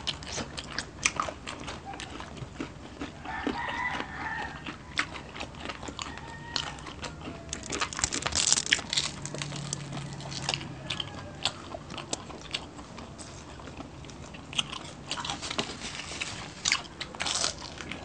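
Close-miked eating sounds of two people biting and chewing crispy fried fish and sisig, a dense run of sharp crunches and wet clicks. A short low hum comes about nine seconds in.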